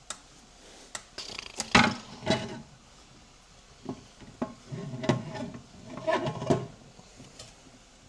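Metal parts of a 6L80 automatic transmission being handled on the bench: scattered clinks and knocks, the sharpest clank a little under two seconds in, then a short run of clattering and rattling about five seconds in.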